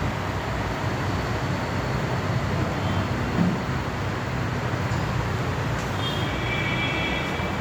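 Steady low background rumble, with one soft knock about three and a half seconds in as the microscope head is handled on its mount. Faint high tones come in near the end.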